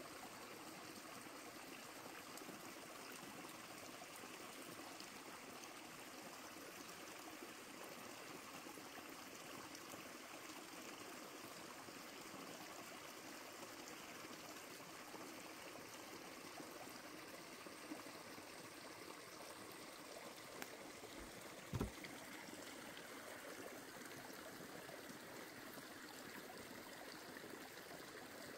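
Small mountain creek trickling and splashing over rocks and moss, a faint steady rush of water. A brief low thump sounds once, a little past the three-quarter mark.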